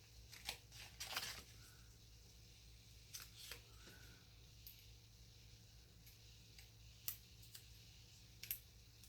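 Faint, scattered clicks and rustles of small paper pieces being handled and pressed into place on a planner page, the loudest about a second in.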